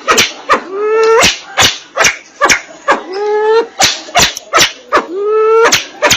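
Sempidan biru (crested fireback pheasant) calling: a run of sharp clicks mixed with short calls that rise in pitch, about one every two seconds. It is a lure recording used to draw wild birds in.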